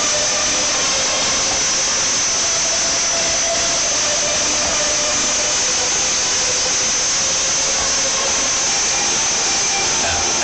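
Loud, distorted wash of festival sound: music from the main stage's sound system mixed with the crowd, overloading a phone's microphone into a steady roar.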